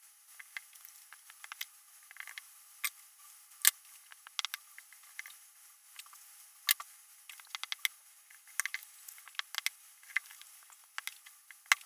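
Paper rustling and light irregular taps and clicks as paper cut-outs are handled, positioned and pressed down by hand onto a sheet of card, with a few sharper taps standing out.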